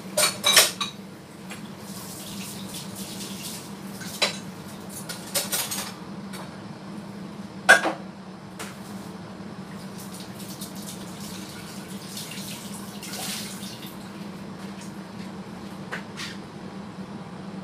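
Oxtail heating in water in a stainless steel stockpot on a gas burner, not yet at a full boil, with a steady low hum. Sharp kitchen clinks break in a few times, the loudest near the start and about eight seconds in.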